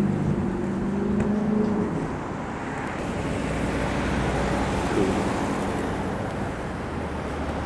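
Road traffic: a vehicle engine running, then a car going by with its tyre noise swelling in the middle and fading, over a low hum.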